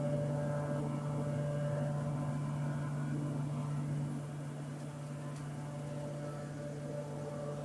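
Steady low motor hum with a fainter higher tone above it, easing slightly about four seconds in.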